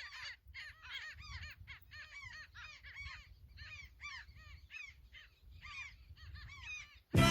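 A flock of birds calling together: a dense, continuous chatter of short, arched calls, many overlapping.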